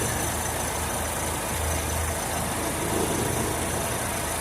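Chevrolet Zafira engine idling steadily with the air-conditioning compressor engaged. Its belt tensioner is not tensioning the accessory belt properly, and its spring is sticking: the mechanic blames it for a noise that seems to come from the AC but does not.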